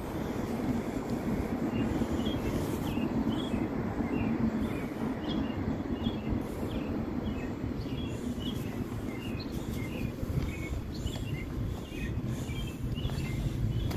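A steady low mechanical rumble, with many short, high bird chirps scattered over it.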